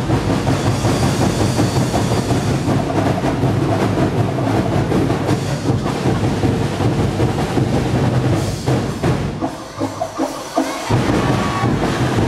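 A festival drum ensemble playing a dense, driving beat on big deep drums and lighter drums. About nine and a half seconds in, the deep drums stop for just over a second, then come back in.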